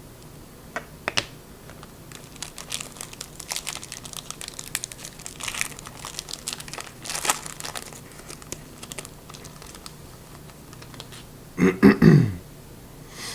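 Trading card pack being opened and its cards handled: crinkling and tearing wrapper with a quick run of small clicks and rustles. Near the end comes a short voiced sound falling in pitch, the loudest thing here.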